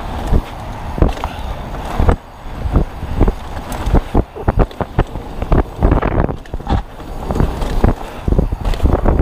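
2021 Polygon Siskiu T7 full-suspension mountain bike descending a bumpy dirt trail at speed: wind buffeting the camera microphone, tyres rolling over dirt, and frequent sharp clatters and knocks as the bike hits bumps.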